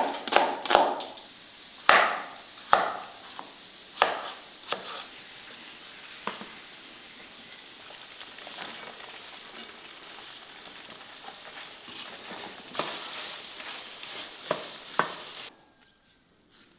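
A knife chopping on a wooden board, a run of sharp knocks, then oil sizzling steadily in a hot pan, with a few more knocks and a slightly louder sizzle near the end before the sound cuts off suddenly.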